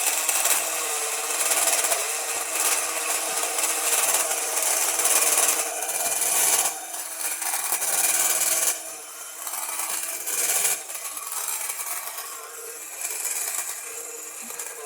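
Kenner The Claw toy vehicle's small motor and gears whirring with plastic wheels scraping as it drives against a tiny toy car, its front axle broken so only the rear wheels drive. Louder for the first nine seconds or so with brief surges, then quieter.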